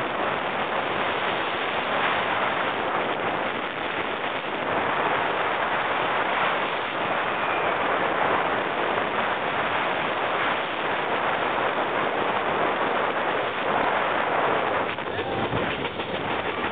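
Wind rushing over the camera microphone as a steel roller coaster train runs at speed along its track, a steady noisy rush with the rattle of the train on the rails.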